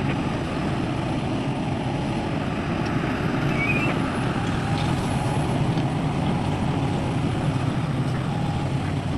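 Heavy diesel earthmoving machinery running steadily under load, an excavator working beside dump trucks.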